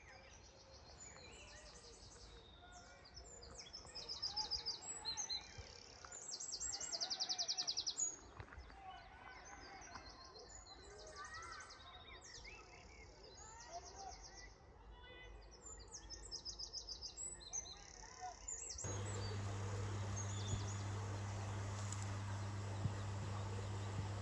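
Songbirds singing, with fast trills of repeated high notes, loudest about four and seven seconds in. After about nineteen seconds the sound switches abruptly to a steady low hum with a noisy background.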